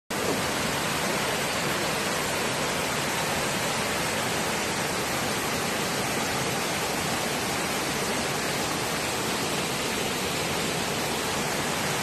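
Waterfall: many thin streams falling over a mossy cliff into a pool, a steady, even rushing of water.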